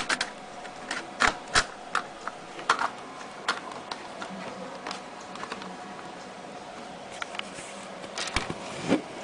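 Irregular sharp plastic clicks and knocks as an optical mouse's two-part shell is handled and fitted back together, a cluster in the first few seconds and another near the end.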